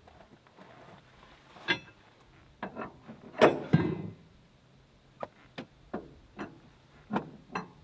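Irregular sharp knocks and metallic clinks as two RHS metal bars are pulled out from behind a front seat and handled against the vehicle's body, about ten in all, the loudest a clunk with a short ring about three and a half seconds in.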